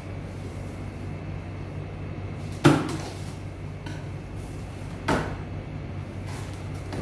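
Two sharp snaps and knocks from a cardboard microwave-oven carton as its plastic packing straps are cut and handled, the louder about two and a half seconds in and another about five seconds in, over a steady low hum.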